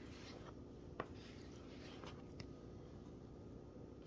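Faint taps and scrapes of a plastic dough scraper cutting through bread dough against a countertop: a few soft ticks, the sharpest about a second in, over a low steady room hum.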